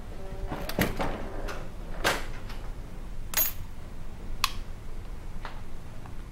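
About half a dozen separate knocks and clicks over a low hum: a door and keys being handled as someone comes into a room, and a light switch clicked on.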